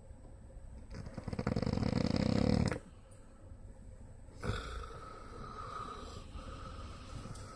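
A man snoring: one long, rattling snore that builds in loudness for about two seconds and stops abruptly, followed by quieter breathing noise.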